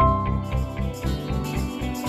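Background music: a song with guitar over a steady beat of about four pulses a second.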